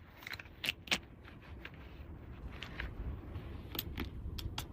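Light, scattered clicks and taps of small plastic toy pieces being handled, over a low background hum.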